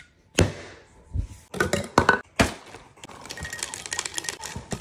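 A plastic portable blender handled and set down on a wooden board, giving a few sharp knocks and clinks. About three seconds in, Reese's Puffs cereal starts pouring into its plastic jar with a dense, fast rattle.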